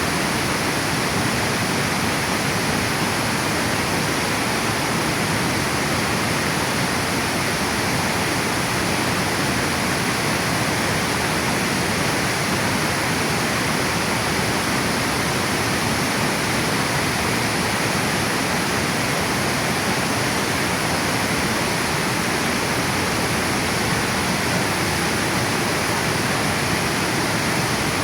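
Water pouring over a river dam weir, a steady, even rushing.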